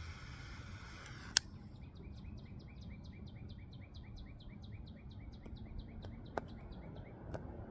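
Triple-jet butane torch lighter burning with a steady hiss, which cuts off about a second in with one sharp click. Then a run of high chirps, about four a second, for several seconds.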